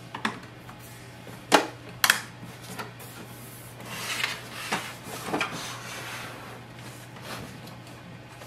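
Power cord plug pushed home in the socket at the back of an HP DeskJet 4252e printer, a few sharp clicks in the first two seconds, then hands rubbing and brushing across the printer's plastic casing with small knocks.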